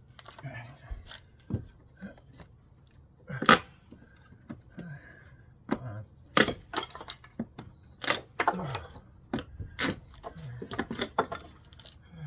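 Old wooden wall framing being broken out: irregular sharp knocks and wood cracking and splintering, about a dozen strikes, the loudest about three and a half seconds in.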